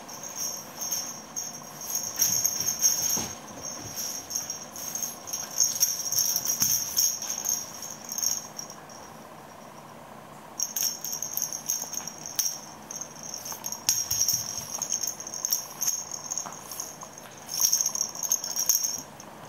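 High, continuous bell-like jingling that rises and falls in loudness, breaking off for about two seconds halfway through, then going on again.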